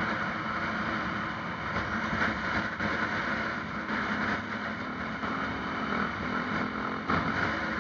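Vehicle engine running while driving, with steady road and wind noise picked up by the vehicle-mounted camera.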